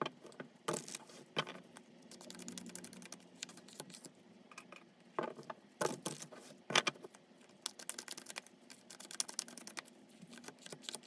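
Tarot cards being shuffled and handled: a run of quick papery clicks and snaps, thickest about seven to nine seconds in.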